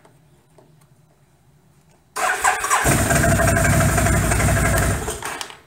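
2008 Can-Am Outlander 800 XT's Rotax V-twin engine starting: the electric starter cranks briefly about two seconds in, then the engine catches and runs for about two and a half seconds before dying away. The owner puts the successful start down to the ignition key now being inserted upside down.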